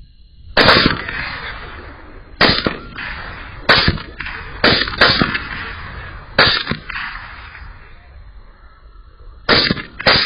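Gunshots fired at feral hogs: about nine shots at uneven intervals, two of them close together near the start and two more near the end, each followed by a rolling echo.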